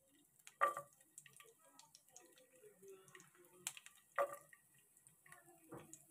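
Garlic slices dropped into warming oil in a nonstick frying pan: a few soft plops, one about a second in and a cluster around four seconds, with faint scattered crackles from the oil.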